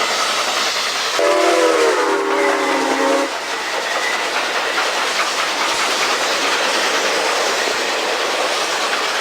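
Train running along the rails with steady wheel and track noise. About a second in, its horn sounds once, a chord of several notes held for about two seconds.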